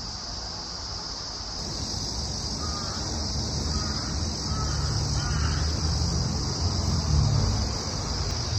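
Steady background ambience: an even high hiss and a low rumble that grows louder about a second and a half in, with a few faint short chirps near the middle.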